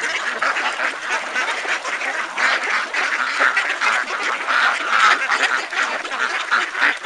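A crowded flock of domestic ducks quacking continuously, many calls overlapping into a steady chatter.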